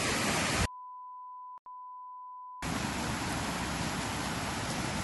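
A steady electronic beep at one pitch, about two seconds long with a very brief break in the middle, cuts in about a second in. It interrupts the rushing of running water from a small cascade into a stream. A steady rushing noise returns after the beep.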